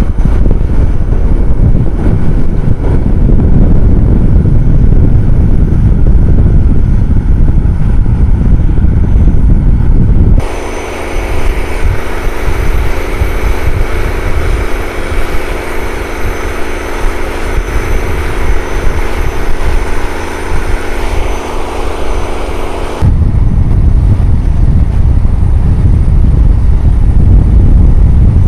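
Boat engine running steadily under way, buried in a heavy low rush of wind and water. From about ten seconds in, the rush drops away and a steady engine drone stands out clearly. Just after twenty seconds the heavy rush returns.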